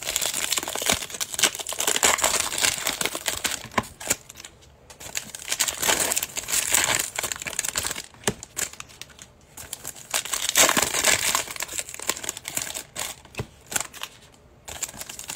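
Foil wrappers of Panini Prizm trading-card packs being crinkled and torn open, in bursts with short pauses.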